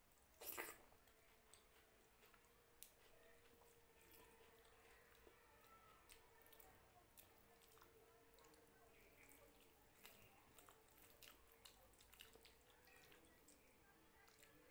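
Faint, wet eating sounds: rice and dal squishing under the fingers and small mouth clicks of chewing, with one louder wet smack about half a second in as a handful goes into the mouth.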